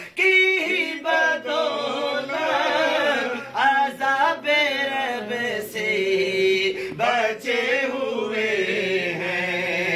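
Voices singing a Sufi devotional song in praise of a saint, in long held notes that waver and bend in pitch.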